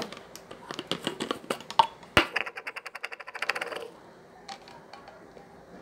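Small plastic cosmetic items being handled: scattered clicks and taps, one sharp knock about two seconds in, then a fast, even run of ticking clicks for about a second and a half.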